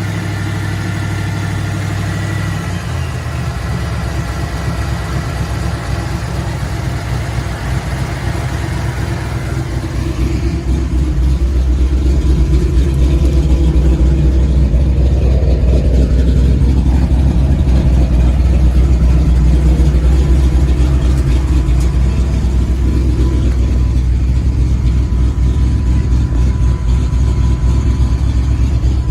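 1994 Ford F-150's supercharged 5.0 V8 running at idle with the rough idle its owner cannot cure, despite new ignition parts, sensors, computer and injectors. The engine gets louder and deeper about ten seconds in.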